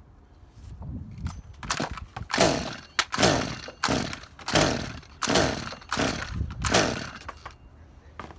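Stihl MS201TC-M top-handle chainsaw being pull-started: a run of about six quick starter-rope pulls, less than a second apart, each a short cranking whirr that falls in pitch, without the engine catching. The owner thinks the saw has an ignition fault in its M-tronic system.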